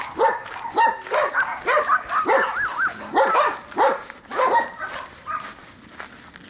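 A dog barking and yipping in a quick run of short calls, about a dozen over the first four seconds, thinning out after that.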